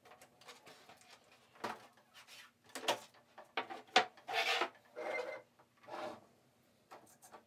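Hollow 3D-printed plastic airframe being handled and slid over a wooden workbench: irregular scraping and rubbing, with one sharp knock about four seconds in.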